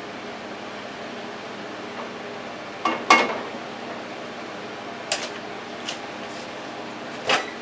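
Dishes and utensils knocking and clattering in a kitchen: a quick cluster of knocks about three seconds in, then single sharp clinks about five, six and seven seconds in, over a steady fan-like hum.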